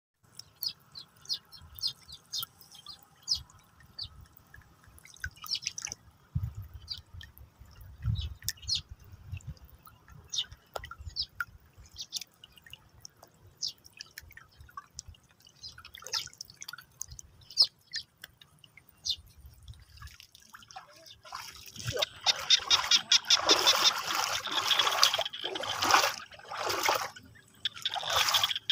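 Shallow flowing water, with scattered small drips and trickles. From about two-thirds of the way in, steady splashing of feet wading through ankle-deep water.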